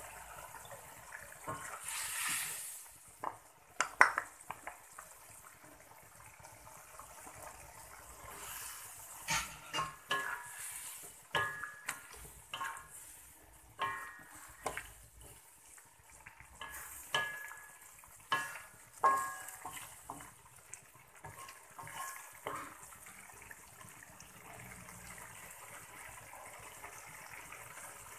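Coconut milk poured into a hot metal wok of cassava leaves, with a brief hiss and a sharp clink of the bowl on the wok. Then a wooden spatula stirs and scrapes in the wok for about ten seconds, a run of knocks and clinks, some of them ringing. Near the end it settles into a faint steady simmer.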